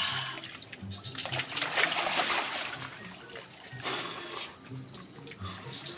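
Splashing in shallow muddy water as a person thrashes and crawls through it, with a run of louder splashes about a second in and another burst near four seconds.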